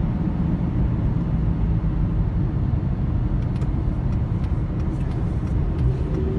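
Steady low rumble of a car's engine and tyres on the road, heard from inside the moving car, with a few faint light ticks about midway through.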